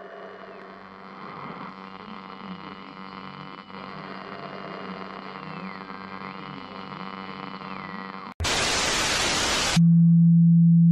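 Eerie horror-style drone of many layered steady tones, with a high tone that glides down and back up slowly. About eight seconds in it cuts to a loud burst of static hiss, then to a loud, steady low hum, the loudest part.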